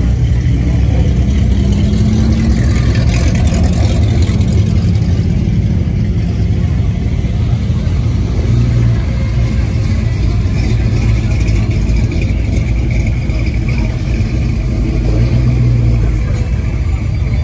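Classic car engines running with a steady low rumble as cars cruise slowly past, one engine revving briefly a couple of seconds in.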